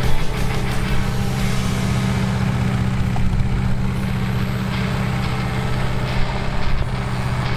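Yanmar SV05 mini excavator's engine running steadily.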